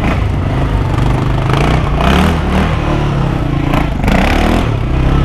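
Motorcycle engine running and being revved in short blips, its pitch rising and falling about two seconds in and again about four seconds in, with bursts of scraping and clattering noise.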